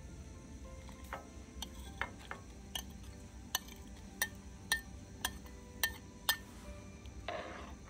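A metal spoon tapping and scraping against a plate, about a dozen light clinks roughly two a second, each with a brief ring, as chopped cooked herbs are knocked off into a pot. A short scrape near the end.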